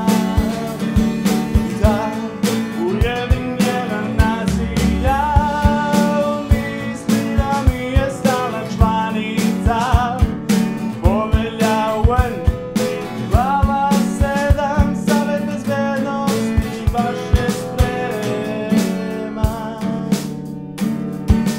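A man singing over a strummed acoustic guitar, the strokes keeping a steady rhythm.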